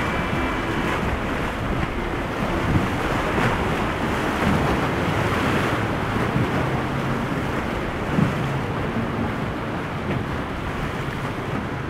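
Wind buffeting the microphone over steady surf and breaking waves, with the low drone of a Vandutch motor yacht's engines and the rush of its hull pushing through the chop.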